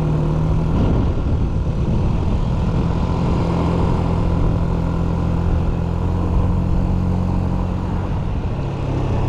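Yamaha Smax 155cc scooter's single-cylinder four-stroke engine running steadily under way, over a steady haze of wind and road noise. Its note shifts about a second in, then holds steady.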